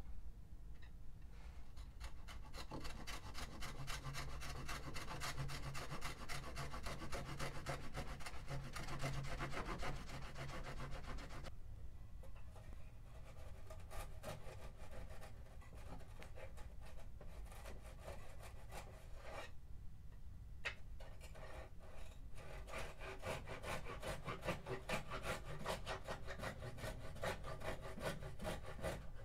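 A small hand saw cutting through balsa wood in quick, even back-and-forth strokes, stopping briefly twice, about 12 and 20 seconds in.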